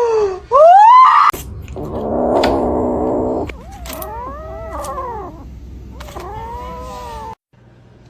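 Cats meowing loudly in a string of long, drawn-out calls that bend up and down in pitch, with two voices overlapping in the middle; the sound cuts off abruptly shortly before the end.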